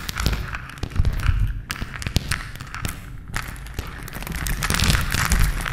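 Crumbling and breaking sound effect: many small knocks of debris clattering over a low rumble, easing off in the middle and building up again near the end.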